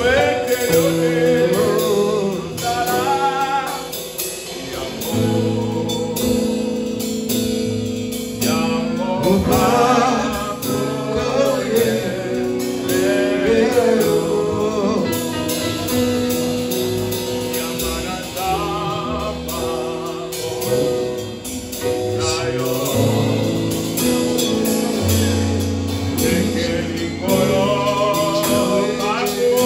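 Gospel worship music: voices singing a wavering melody over long held instrumental chords and bass notes.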